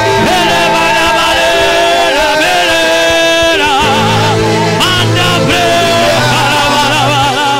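Live gospel worship music: a man singing lead into a microphone in long, wavering held notes over a steady band accompaniment.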